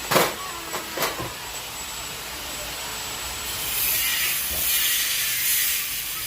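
A few light knocks, then about three and a half seconds in a loud, steady hiss of pressurised air or spray that lasts about two and a half seconds and stops just before the end.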